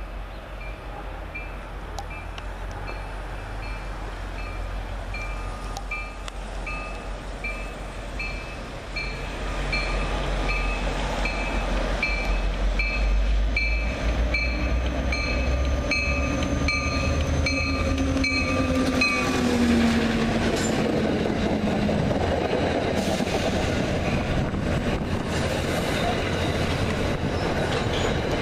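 MBTA F40PHM-2C diesel locomotive approaching and passing, its rumble growing louder, while a warning bell rings about twice a second and stops about two-thirds of the way through. The passenger coaches then roll past with steady wheel and rail noise.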